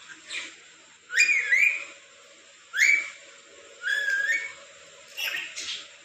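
Caged parrot giving four short whistled calls, each sliding up in pitch, a couple holding or stepping up at the end.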